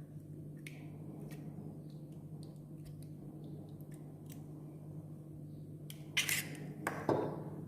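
Eggs being cracked and separated by hand: light clicks and taps of eggshell against a bowl, with a louder crack and clatter about six seconds in, over a steady low hum.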